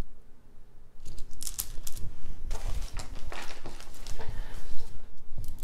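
Strands of African recycled glass beads clicking and clattering against one another as they are handled and laid down on a pile of other strands. The clicks start about a second in, with soft handling bumps among them.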